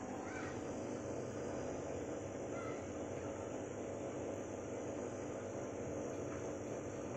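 Steady hum and bubbling hiss of an aquarium air pump driving a sponge filter, with a few faint animal calls near the start.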